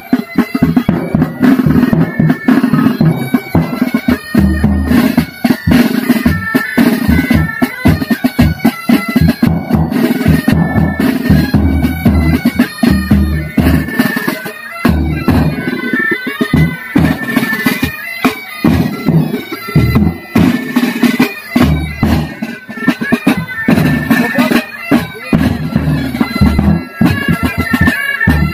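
Pipe band playing: bagpipes with steady drones under the chanter melody, over side drums, tenor drums and bass drum beating rapidly and continuously.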